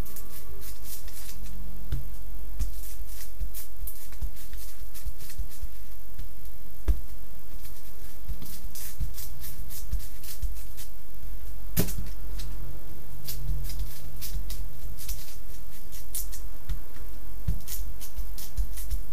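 Irregular clicks and crinkling as hands press and work over a foil-faced Reflectix car shade, over a steady low hum.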